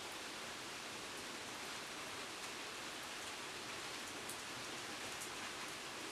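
Steady rain falling on a garden, an even hiss with a few sharper drop ticks now and then.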